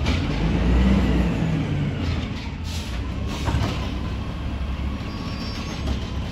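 2011 Autocar Amrep refuse truck's engine running with a low rumble, a whine rising and falling over the first few seconds, and short bursts of hiss, the clearest about two and a half seconds in.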